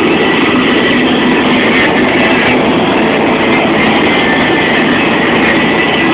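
Steady, loud drone of a Kenworth K104 truck under way at highway speed: engine and road noise heard from inside the cab.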